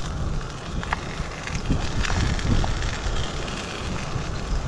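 Salmon fillets sizzling in hot oil in a frying pan, over a steady low rumble, with a few light clicks as a plastic spatula moves and presses the fish against the pan.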